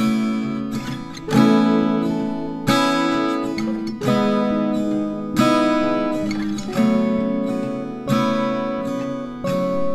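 Background music: acoustic guitar strumming slow chords, one strum about every second and a half, each left to ring and fade.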